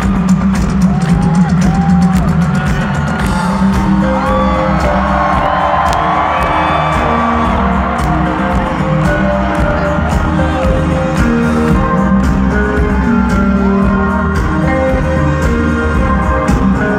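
Live band playing through a stadium sound system with a steady drum beat, and the crowd singing and whooping along, heard from among the audience.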